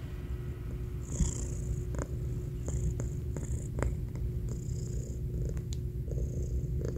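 Domestic cat purring close up: a steady, pulsing low rumble with several sharp clicks scattered through it.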